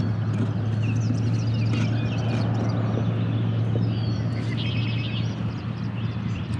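Birds chirping and calling, many short high notes, over a steady low hum and rushing noise that eases slightly near the end.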